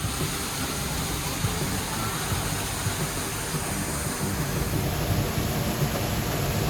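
Waterfall rushing: water pouring over a limestone ledge, a steady, dense noise with no break.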